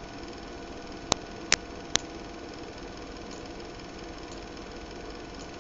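Three sharp clicks, about half a second apart, starting about a second in, over a steady hum with faint steady tones.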